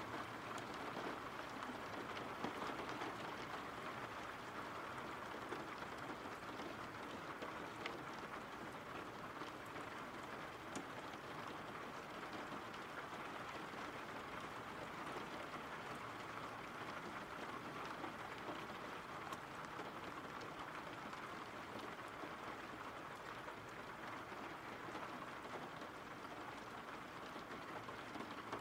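Steady rain: an even, dense patter of falling rain, with a few faint sharper drop ticks.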